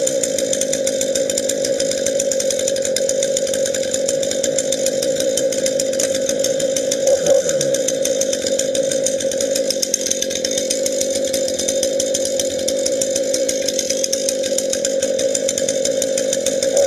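Husqvarna two-stroke chainsaw idling steadily just after a cold start with the choke pushed back in, with one short blip of the throttle about seven seconds in.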